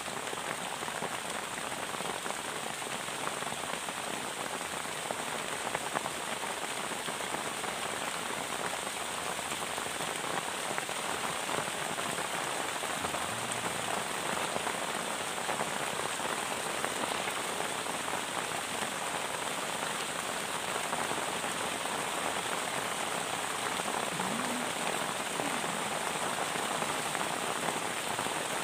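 Steady rain falling on a plastic tarp shelter, a continuous even hiss of drops.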